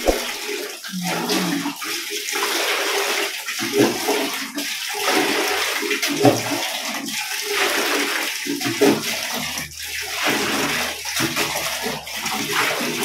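Water scooped from a plastic bucket with a plastic dipper and poured into a plastic basin, splashing unevenly through repeated scoops.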